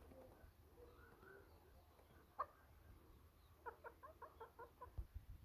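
A wild chicken calls: one short sharp note about two seconds in, then a quick run of about nine soft clucks near the end.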